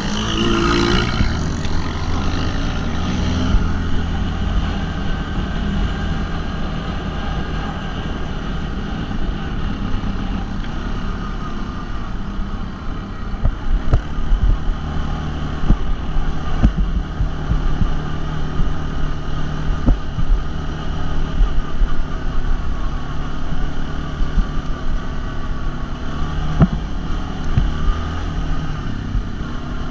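ATV (quad bike) engine running steadily under way, heard from on board, with wind on the microphone. From about halfway through, frequent sharp knocks and thumps come as the quad rides over the rough track.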